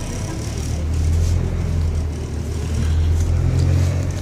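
Diesel passenger train's engine running under way, heard inside the car as a steady low drone that swells about a second in and again near the end, over the rumble of the moving car.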